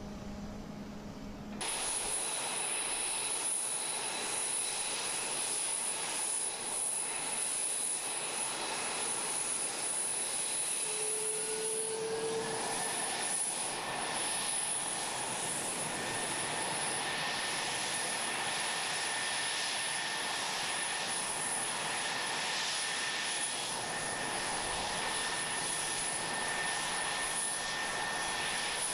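Jet turbine whine and rushing hiss from F-22 Raptor fighters on the flight line, with a steady high whistle throughout. It cuts in suddenly after a low hum about a second and a half in, and around eleven seconds in a second whine rises in pitch and then holds steady.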